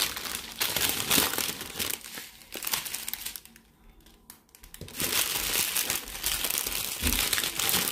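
Small clear plastic bags crinkling as they are handled, with a pause of a second or so about halfway through.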